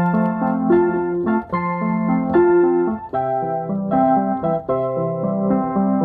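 Background music: keyboard instrumental with sustained chords and a moving melody line, its electric-piano or organ tone held between note changes.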